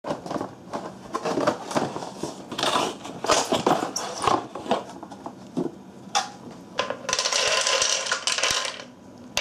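A cardboard box and a hard plastic slow-feeder bowl being handled, giving scattered clicks, knocks and crinkles. About seven seconds in, dry dog kibble is poured from a plastic tub into the plastic maze bowl as a dense rattle lasting nearly two seconds.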